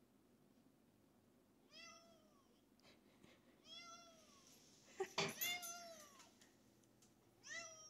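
Recorded domestic cat meows played back from a laptop speaker: four separate meows about two seconds apart, each rising then falling in pitch. A sharp knock comes with the loudest meow about five seconds in.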